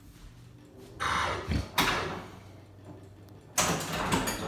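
Pinball machine clatter and electronic effects in several loud, sudden bursts: about a second in, just before two seconds, and near the end. Under them runs the low, steady hum of a Hunter Ambrose ceiling fan spinning, mostly masked by the pinball.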